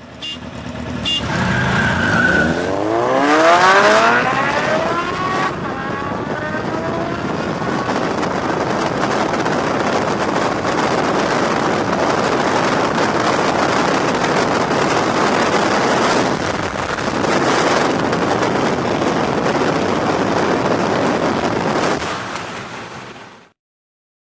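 Vehicles in a street drag race: engines accelerating hard off the line, pitch rising over the first few seconds, then a long steady rush of engine and road noise at full speed, which cuts off suddenly near the end.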